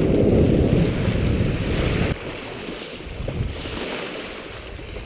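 Wind buffeting the microphone with a loud low rumble that drops away suddenly about two seconds in, leaving the quieter wash of small sea waves breaking against the rocks.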